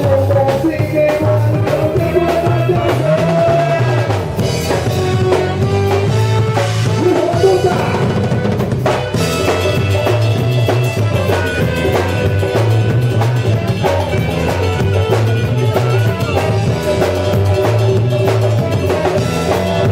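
Band music with drum kit, bass and melodic instruments playing an instrumental passage with no singing.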